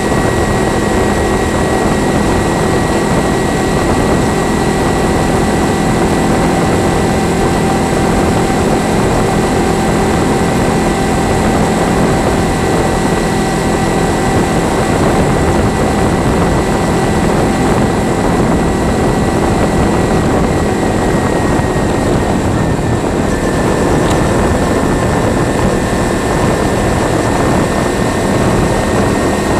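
Kawasaki Ninja 300 parallel-twin motorcycle riding steadily at road speed, its engine noise mixed with loud, even wind rush on the bike-mounted microphone. A thin, steady high tone runs through it.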